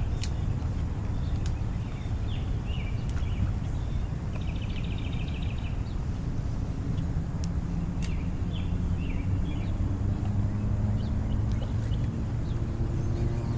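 Small birds trilling and chirping a few times over a steady low rumble. A faint hum joins the rumble about halfway through.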